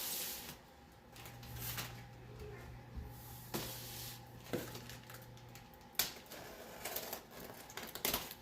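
Scattered clicks, knocks and rustles from a shipping box being handled, with a low steady hum for a few seconds in the middle.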